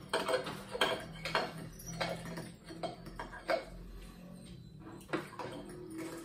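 Metal forks clinking and scraping against dinner plates as pasta is twirled and eaten, with frequent sharp clicks during the first few seconds and fewer after.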